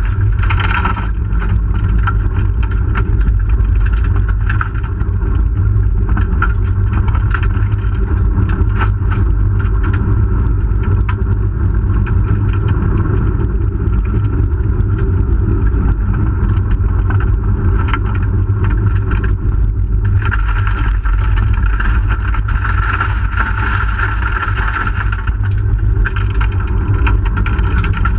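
1997 Hyundai Excel SOHC rally car heard from inside the cabin, its four-cylinder engine running hard under load on a dirt stage. Steady tyre and road rumble runs underneath, with scattered short clicks through it.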